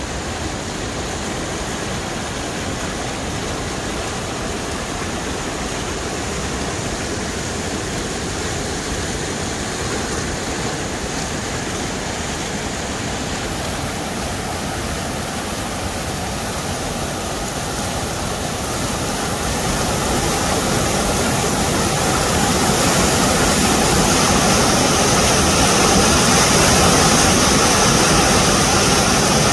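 Whitewater of a fast-flowing creek rushing over rocks and small drops: a steady rush of water that grows louder about two-thirds of the way through.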